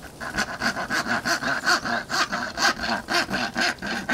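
Hand saw cutting through a wooden branch, in quick, even back-and-forth strokes of about three a second.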